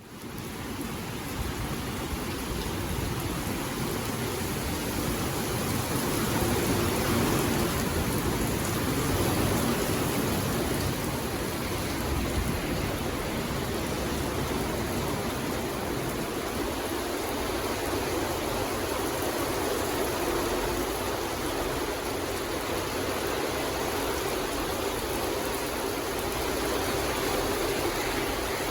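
Steady rain falling, an even wash of noise that runs on without breaks.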